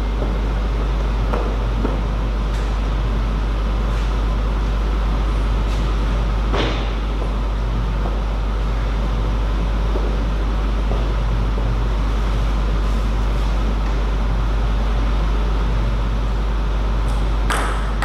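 Steady low hum with a few light clicks scattered through it; near the end comes a sharp click of a table tennis ball against the table or bat.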